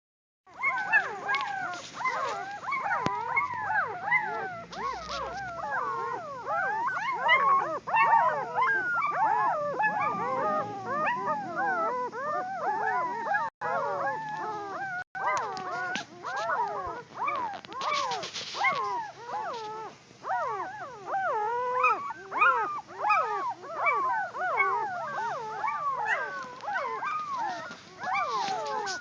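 A litter of puppies whining and yelping together: many high cries overlapping, each rising and falling in pitch, without a pause.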